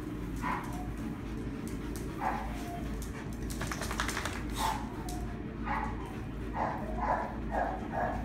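Dogs barking and yipping as they play, in short separate calls with a quick run of them near the end.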